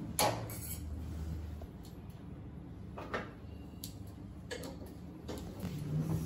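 Scattered sharp clicks and taps of scissors and small medical instruments being handled over a steel exam table, the loudest just after the start.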